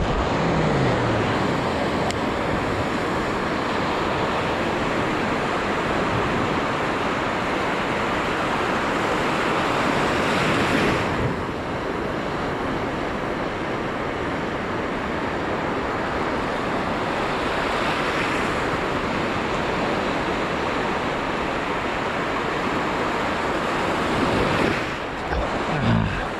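Sea surf breaking and washing along the shore, with wind on the microphone. A bigger wave surges up about ten seconds in, and a smaller one around eighteen seconds.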